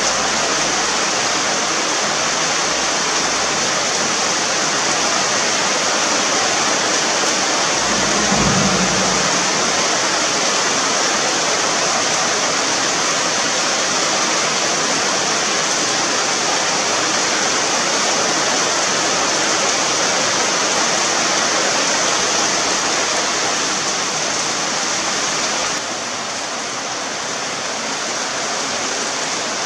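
Heavy rain falling steadily, a loud even hiss. A single low thump about eight seconds in, and the rain eases a little in the last few seconds.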